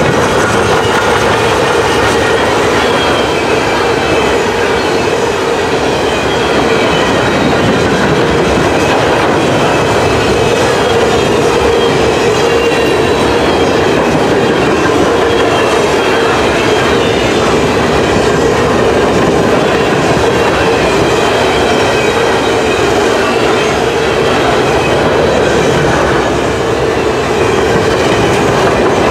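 Freight cars of a loaded potash train rolling steadily past, a continuous rumble of steel wheels on rail with thin, high squealing tones over it, as the train brakes to pull up to a stop.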